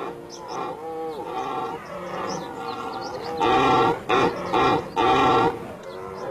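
Red deer stags roaring in the autumn rut. Several calls rise and fall in pitch, then three loud roars come in quick succession about halfway through.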